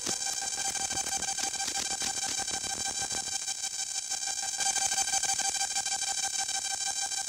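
Electronic techno music: a steady synthesizer tone with a stack of overtones, under dense noisy percussive hits that die away about three seconds in.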